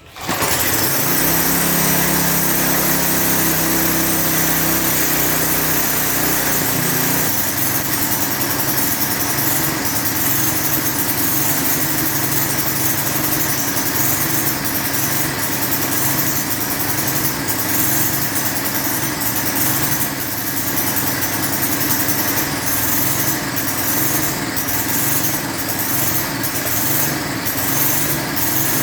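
3.5 HP Tecumseh single-cylinder engine on a lawn edger running loud and steady, its note shifting about seven seconds in.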